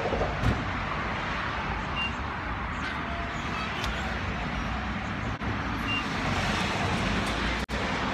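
Road traffic noise: a steady rumble and hiss of passing vehicles, with a short thump about half a second in.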